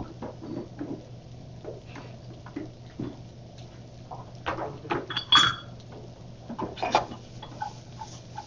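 Stainless steel pans and bowls clinking and knocking as they are handled on a gas range, with a sharper ringing clang about five seconds in. A steady low hum runs underneath.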